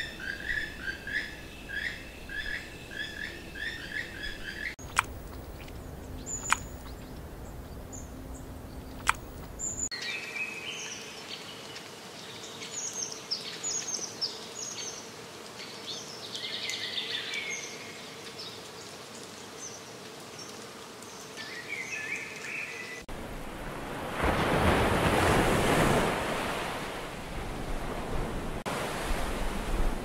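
Birds singing and calling in several short spliced stretches: first a fast series of repeated chirps, about two a second, then a few sharp clicks, then several birds calling over one another. About 23 seconds in, waves breaking on a shore take over as a loud, steady rush of surf.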